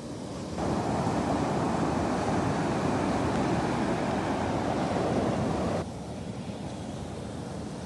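Ocean surf: a steady wash of waves that grows louder and fuller under a second in, holds for about five seconds, then drops back sharply to a softer wash.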